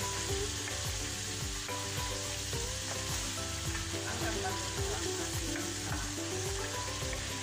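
Chopped tomatoes and onions sizzling in hot oil in a non-stick frying pan while a wooden spoon stirs them, knocking and scraping against the pan.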